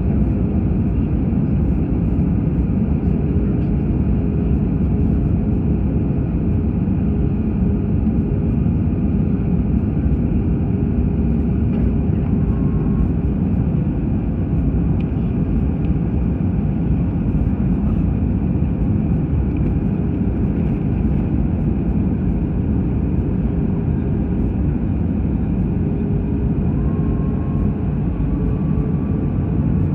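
Airbus A320 cabin noise on approach with flaps extended: the steady, loud rush of the engines and airflow heard inside the cabin over the wing, with a faint steady hum running through it.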